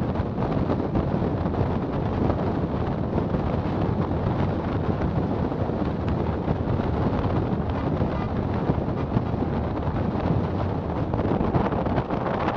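Steady wind rushing over the microphone of a camera on a car moving at about 45 km/h, with a low road and engine rumble underneath.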